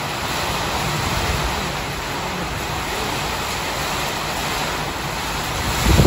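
Heavy rain blown by strong monsoon storm winds, a steady roar with wind buffeting the microphone; a stronger gust swells at the very end.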